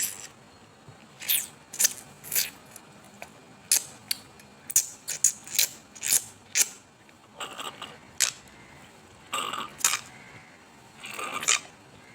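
A series of about a dozen short, crisp clicks at irregular spacing, with three longer scratchy sounds in the second half.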